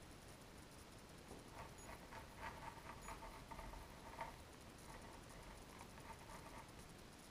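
Faint scratching of a pencil sketching on paper, a run of short strokes.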